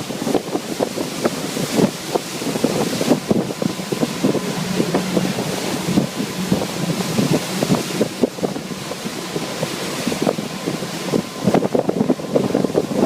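Wind buffeting the microphone on a moving motorboat, over the rush of water and the boat's engine, which comes through faintly as a low steady drone in the middle.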